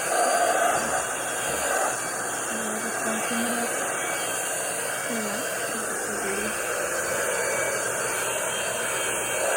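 Vacuum cleaner running steadily, a continuous rushing hiss of air.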